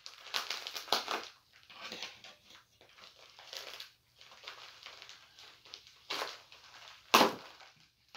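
A small mailer bag being picked at and torn open by hand: irregular crinkling and ripping of the wrapping, with one sharp, loud rip about seven seconds in.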